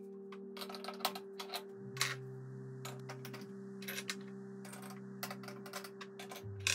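Irregular light metallic clicks and clinks as gas hob burner caps and parts are set down and seated back onto the burners of a stainless-steel hob.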